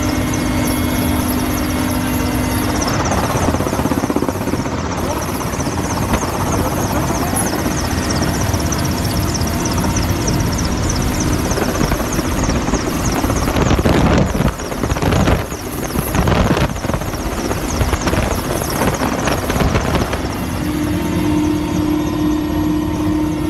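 Helicopter in flight, heard from on board: steady, loud rotor and engine noise with rushing wind. A low steady hum sounds over it for the first few seconds and again near the end, and the noise wavers unevenly a little past the middle.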